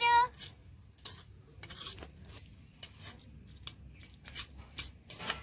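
Small metal spatula scraping and tapping on a miniature clay pan as dried red chillies are turned in it: irregular light scrapes and clicks.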